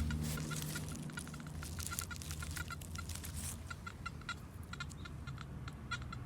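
Metal detector giving short electronic beeps at one pitch, coming irregularly several times a second, with scattered clicks and handling noise.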